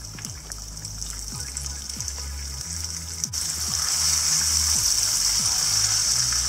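Masala-marinated tilapia frying in hot olive oil: a steady sizzle that turns much louder about three seconds in, as the fish is flipped over with a spatula and tongs onto its other side in the pan. Soft background music underneath.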